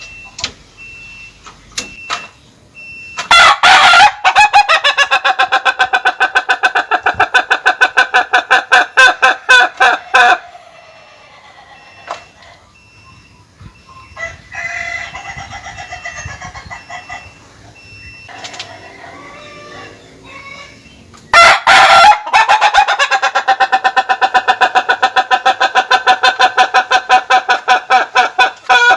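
Ayam Ketawa rooster crowing in its breed's long laughing crow, a rapid run of short repeated notes lasting about seven seconds. It crows twice, with softer calls in the pause between.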